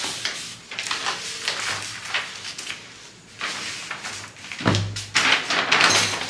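Large paper pattern sheets rustling and sliding over a table as they are moved and smoothed flat by hand, with a dull knock on the table a bit under two-thirds of the way in.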